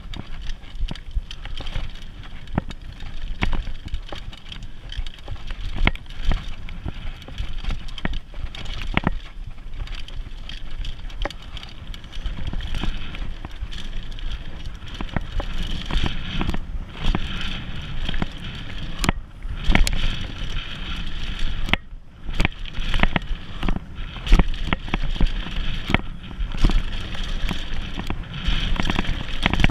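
Mountain bike rolling fast down a dirt singletrack: a steady low rumble from the ride, with frequent sharp clicks and knocks as the bike rattles over bumps and roots.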